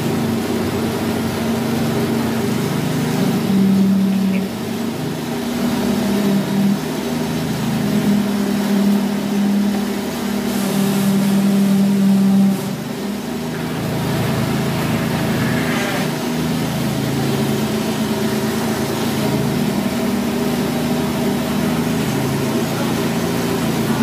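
Engines of concrete-pouring machinery running steadily, a low drone whose pitch shifts a little. It is louder from about 3 to 12 seconds in, then eases off slightly.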